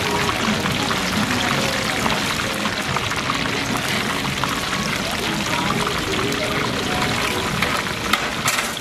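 Battered chicken ribs deep-frying in a large wok of hot oil: a dense, steady sizzle and crackle of bubbling oil. A couple of sharp clicks come near the end.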